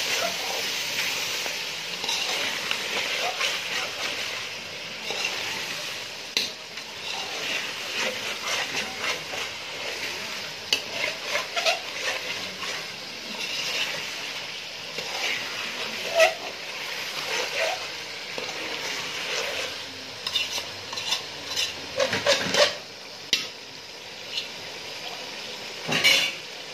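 A spoon stirring chicken pieces and small onions as they sizzle in an aluminium pot, with repeated scraping and knocking against the pot's sides. A few louder clangs come near the end.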